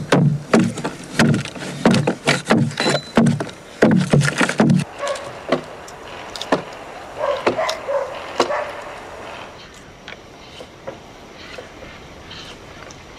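Quick, repeated blows of a hand tool chopping into the wooden hull of a dugout canoe, about three a second, stopping about five seconds in. A calf then calls a few times.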